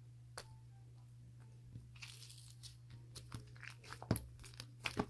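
Someone biting and chewing crunchy food close to the microphone: a quick run of sharp crunches that starts about two seconds in and gets denser, over a low steady hum.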